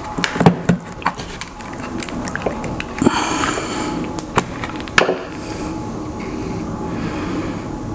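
A screwdriver and the hard plastic housing of a Ryobi 40V lithium-ion battery pack being worked as the pack is unscrewed and taken apart: irregular clicks and knocks, with a short scraping rattle about three seconds in.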